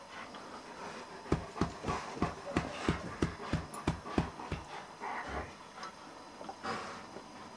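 Two dogs, a black German Shepherd and a small white dog, playing tug with a toy. About a second in comes a quick run of about a dozen short, low sounds, about three a second, lasting a few seconds, followed by a longer low sound and softer scuffling.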